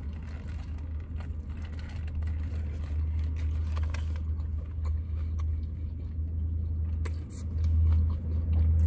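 Low, steady rumble of a car heard from inside the cabin, swelling louder near the end, with a few faint clicks.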